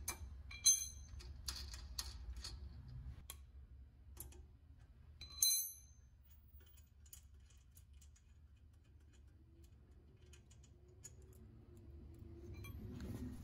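Faint metal clicks and clinks of a 19mm wrench working the PTO nuts and lock washers off a BCS two-wheel tractor's PTO studs, with a ringing clink about half a second in and a louder one about five and a half seconds in.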